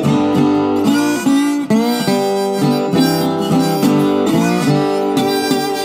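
Blues band music: a harmonica plays a line of held and sliding notes over guitar accompaniment.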